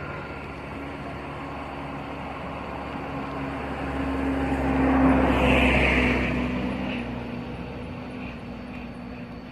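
A motor vehicle's engine passes by. Its steady hum swells to a peak about halfway through and then fades away.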